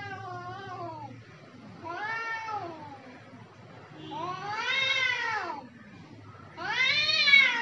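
Domestic cats in a standoff, yowling: three long drawn-out yowls that rise and then fall in pitch, the last one the loudest, after the fading end of an earlier yowl.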